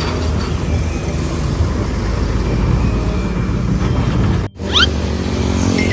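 Heavy truck or bus engine running with a steady low rumble. About four and a half seconds in, the sound breaks off abruptly for an instant and comes back with a quick rising chirp.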